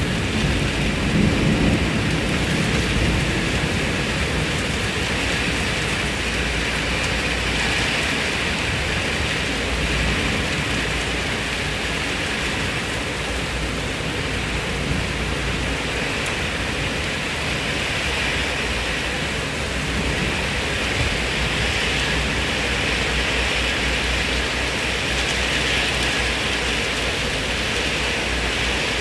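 Steady heavy rain falling, with a low thunder rumble fading away in the first couple of seconds.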